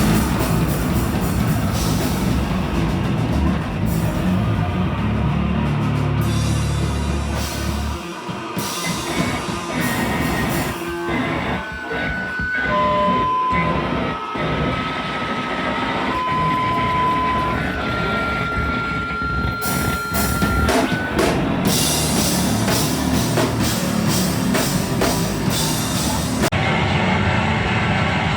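Loud live noise-rock performance: a dense, distorted wall of sound with drum hits, heavy low rumble in the first few seconds, and high steady tones held for a second or more at a time in the middle.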